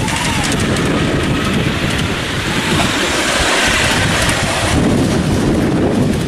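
Wind buffeting the camera microphone: a loud, steady rushing noise.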